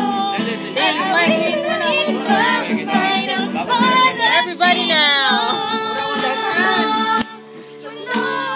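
Singing with guitar accompaniment. The held notes slide and waver in pitch, and the singing drops out briefly about seven seconds in.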